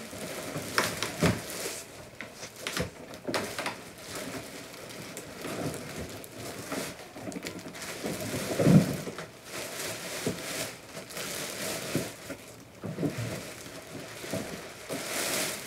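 Plastic packaging crinkling and rustling as a wrapped car seat is worked loose and lifted out of a cardboard box, with scattered knocks and one louder thump about halfway through.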